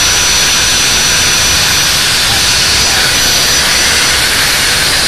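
Makita angle grinder running free at full speed with a steady, high-pitched whine, on a replacement bearing taken from a Bosch grinder.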